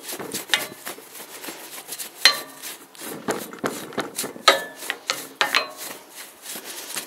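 Soft brush scrubbing dust off an antique iron sewing-machine treadle base: irregular scratchy strokes, about one or two a second, some with a brief metallic ring.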